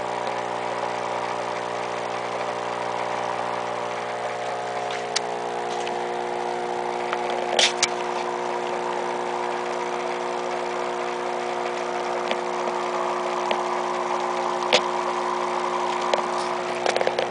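Small motor humming steadily, several pitches held together without change. A few light clicks and taps break in, two close together about halfway through and one sharper one near the end.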